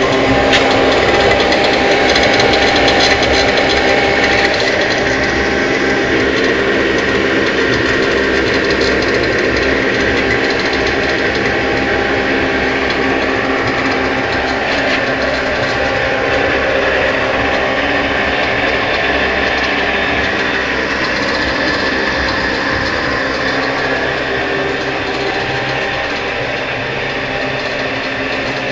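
Home-built waste engine oil heater running: a loud, steady mechanical whirr with a constant hum.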